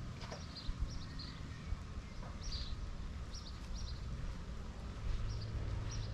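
Small birds chirping, short high notes repeating every half second or so, over a steady low rumble.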